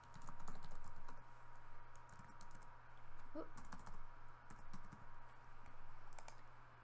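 Typing on a computer keyboard: a run of quick, irregular keystrokes, over a faint steady hum.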